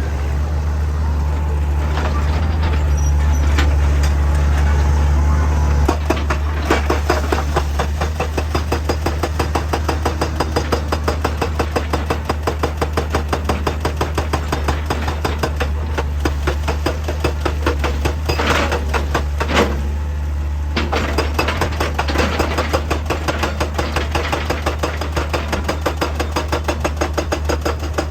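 Heavy diesel machinery running with a deep steady engine hum, joined from several seconds in by fast, even percussive strikes at about four a second, as from a hydraulic rock hammer or percussion drill working rock; the strikes ease briefly around two-thirds of the way through.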